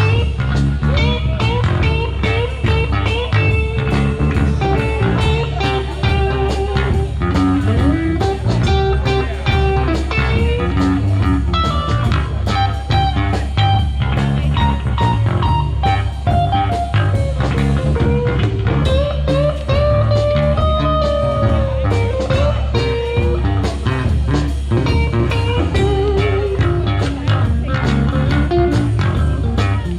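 Live band jamming a blues-rock groove: a guitar playing melodic lines with a bent note, over bass guitar and a steady beat.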